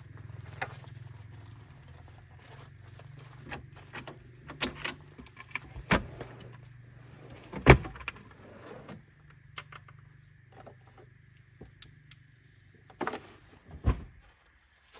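Scattered knocks and clicks of objects being handled, with a few louder thumps, the loudest just before the middle. A steady high-pitched insect drone runs underneath.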